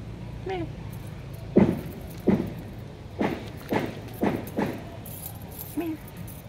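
A kitten gives a short mew, then six sharp clicks or taps in an uneven run over about three seconds, and a second short mew near the end.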